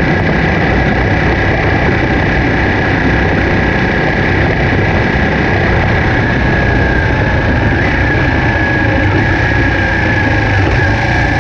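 Ducati 959 Panigale's 955 cc Superquadro L-twin engine running under way at about 75 km/h, with rushing air noise over the onboard microphone. In the last few seconds the bike slows and is shifted down from fourth gear to second.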